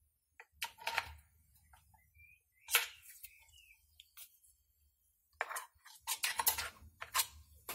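Scattered clicks and taps of a screwdriver against the clutch and plastic housing of a Stihl 017 chainsaw, with a quick run of clicks in the last couple of seconds.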